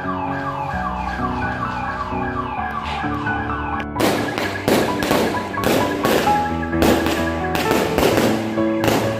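Background music from a Chinese New Year song, with repeated falling gliding notes over held chords. About four seconds in it switches abruptly to a busier section full of sharp percussive cracks and thuds.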